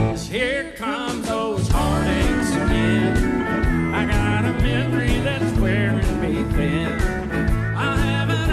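Country band music: a wavering lead melody over bass and a steady drum beat.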